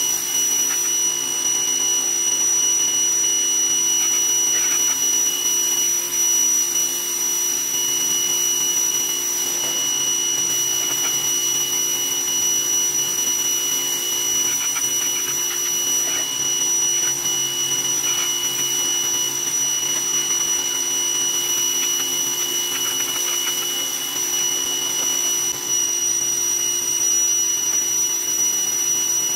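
Greenworks 2000 PSI electric pressure washer running steadily, its motor and pump giving a constant high whine under the hiss of the water jet spraying against the truck.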